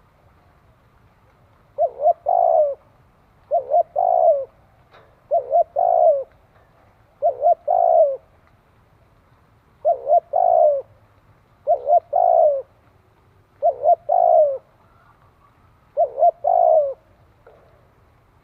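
Spotted dove cooing: eight repeated phrases about two seconds apart, each two quick short notes followed by a longer note, starting about two seconds in.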